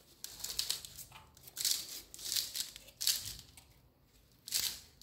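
A handful of short, scratchy scraping and rustling noises, about five in all, as a hand works along the tiled corner and its aluminium edge profile.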